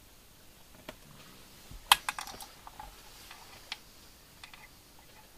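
Small clicks and taps from hands handling the thread and tools at a fly-tying vise: a sharp click about two seconds in, then a quick run of lighter clicks and a few scattered ticks.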